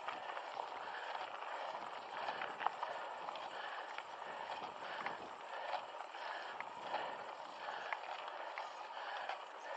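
Mountain bike climbing on a dirt trail: tyres crunching over dirt and stones with many small scattered clicks and rattles, and the rider breathing hard in uneven swells.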